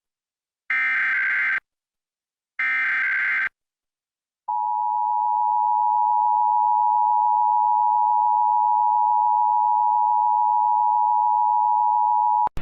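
Emergency Alert System signal opening a North Carolina Required Monthly Test: two short data-burst screeches, the last of the three SAME header repeats, just under a second each, then after a pause the two-tone EAS attention signal (853 and 960 Hz together) sounding steadily for about eight seconds before cutting off.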